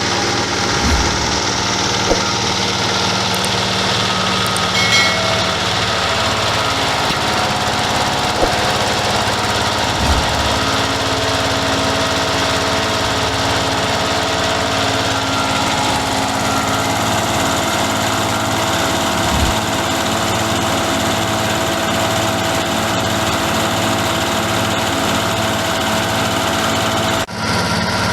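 An 8 HP diesel engine running steadily and driving a rice-husk grinding mill, with a few short knocks heard over the running.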